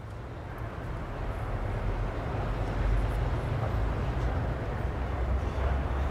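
City ambience: a steady deep rumble of distant traffic with a hiss above it, fading in from silence and growing louder over the first couple of seconds.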